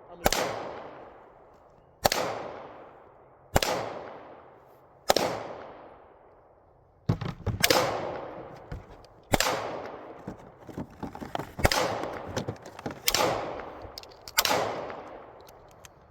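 Gunshots, about ten, each followed by a long echoing tail. The first four come evenly, about a second and a half apart. From about halfway through they come quicker and less evenly, with smaller cracks in between.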